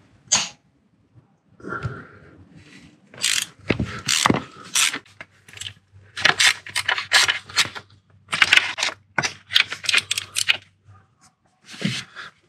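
Hand tools and metal parts clicking and clattering in irregular bursts as bolts and parts are worked loose in a car's engine bay.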